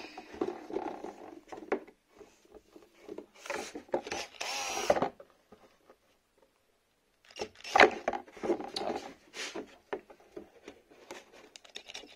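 Clicks and scraping of tools being handled against a soft plastic RC car body, with a short burst of drilling about three and a half seconds in.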